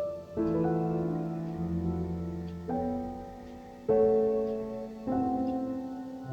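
Slow, soft piano music: a new chord struck about every second and a half, each left to ring and fade.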